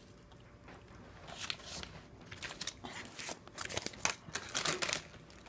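Irregular crinkling and crunching from Snyder's of Hanover Hot Buffalo Wing pretzel pieces and their snack bag, starting about a second in as a rapid run of short crackly clicks.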